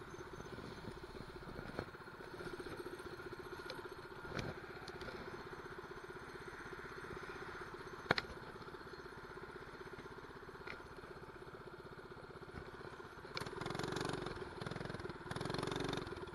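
Mini bike's 212 cc single-cylinder four-stroke engine running steadily while riding along, with a sharp tap about eight seconds in. The engine gets louder twice near the end.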